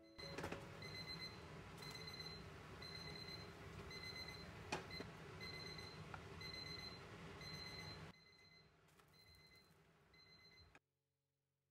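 Pancake batter sizzling in a nonstick frying pan, a steady hiss, with a high electronic beep repeating in short runs like an alarm or timer. The sizzle drops away about eight seconds in, and the sound cuts to silence near the end.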